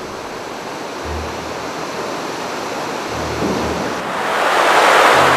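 Rushing whitewater of a mountain river running through boulder rapids: a steady wash of noise that swells louder near the end.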